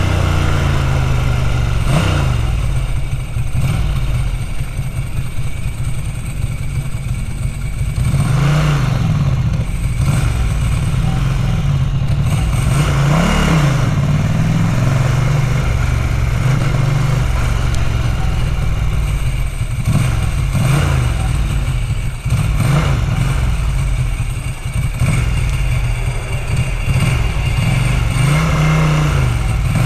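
Ducati 900 SS's air-cooled V-twin engine running on the road, its revs rising and falling several times as the bike accelerates and eases off. The owner describes the bike's carburettor trouble as a chronic hiccup.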